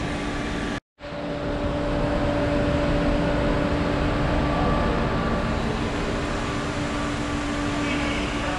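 Steady background drone of a large warehouse-style grocery store, a low constant hum under an even rumble. The sound cuts out for a split second about a second in, then carries on unchanged.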